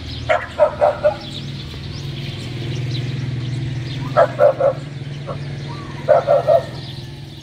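A dog barking in three quick runs of three or four barks each, a couple of seconds apart.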